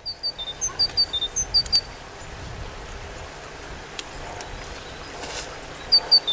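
Small songbird chirping: short high notes at a few set pitches in quick groups for about two seconds, then an even outdoor hiss with one faint click, and the chirping starts again near the end.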